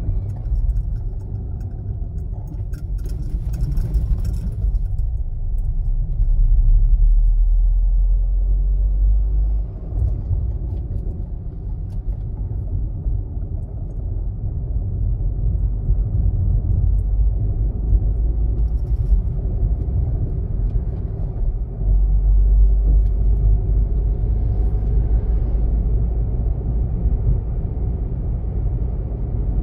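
Car driving along a highway, heard from inside the cabin: a steady low rumble of tyres on asphalt and the engine, swelling louder twice, about six and twenty-two seconds in. A brief light rattle sounds a few seconds in.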